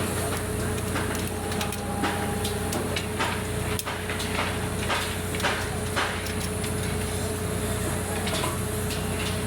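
Heavy machinery running steadily, a constant low drone with a steady whine above it, with scattered short knocks and clinks.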